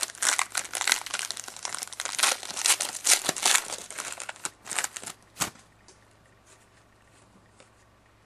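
Wrapper of a hockey card pack being torn open and crinkled by hand: dense crackling for about five seconds that ends in one sharp click, then only faint ticks of the cards being handled.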